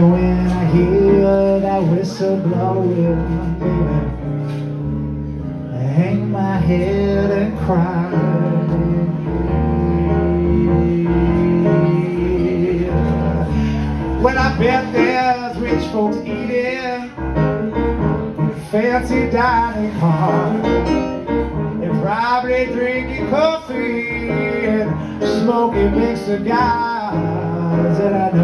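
Blues harmonica solo played cupped against a handheld microphone, its notes bending and wavering, busier in the second half. Underneath, a Nord Stage 3 keyboard plays a steady bass line and chords.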